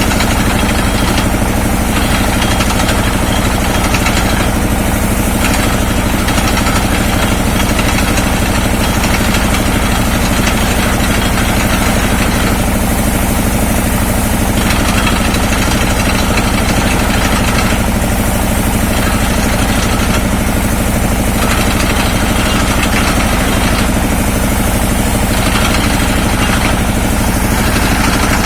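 Engine of an industrial well-drilling rig running steadily and loud, with a rougher, noisier upper layer that swells and eases every few seconds.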